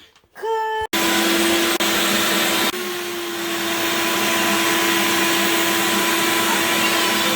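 A vacuum cleaner switches on about a second in and runs steadily with a constant hum, sucking the built-up debris out of the dryer.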